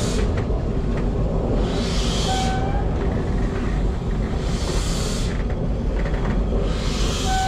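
Steam locomotive moving slowly, a hissing steam chuff about every two and a half seconds over a steady low rumble. A short squeal follows two of the chuffs, once about two seconds in and again near the end.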